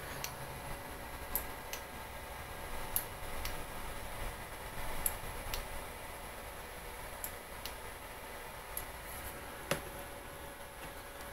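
A dozen or so light, irregular clicks, one a little louder near the end, over a faint steady hum.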